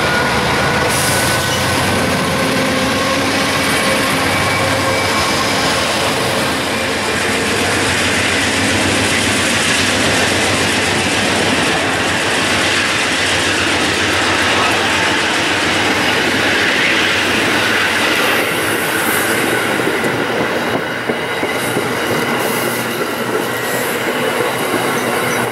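Amtrak passenger train rolling past close by, a steady loud rush of steel wheels on rail as the cars go by, easing a little near the end.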